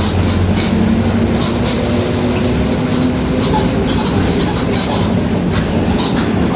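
Mercedes-Benz OF-1721 bus under way, its diesel engine running with a low hum that rises slightly in pitch over the first few seconds. The rear differential is growling, and body panels keep up a steady rattle and clatter.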